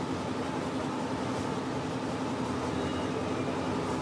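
Steady outdoor background noise with a constant low hum underneath; no music or voice comes through yet.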